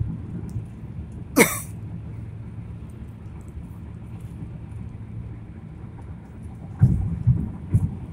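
Car cabin road and engine noise, a steady low rumble while driving on the freeway. A brief sharp swish cuts through about a second and a half in, and several low thumps come near the end.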